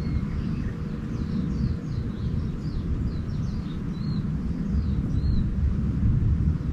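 Small birds twittering: quick, high chirps and short arched notes, one after another throughout, over a steady low rumble.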